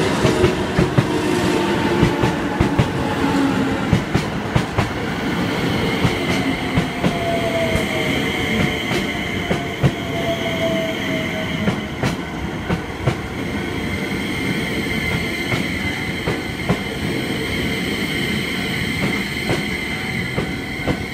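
Keio 5000 series electric train rolling slowly through a level crossing, its wheels clacking over rail joints, while the motors give a whine that falls in pitch as it brakes into the station. A level crossing warning bell rings steadily alongside.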